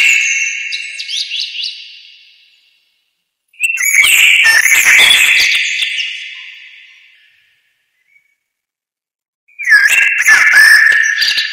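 An added intro sound effect of bright whistling, chirp-like tones comes in three bursts. The bursts come about every four to six seconds; each starts suddenly, then fades away, with silence between them.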